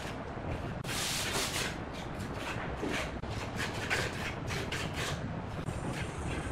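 Small steel putty knife scraping and spreading white paste along the edge of a concrete countertop in repeated short strokes, about two a second, with a longer, stronger stroke about a second in.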